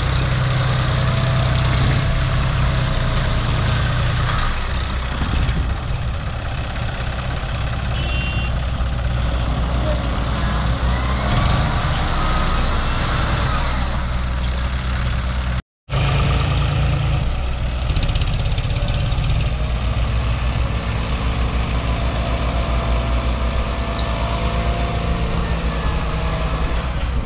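Tractor diesel engines, a John Deere's and a Kubota's, running steadily under load as the John Deere tows the stuck Kubota and its soil-loaded trailer out of a rut. The sound cuts out for a moment about halfway through.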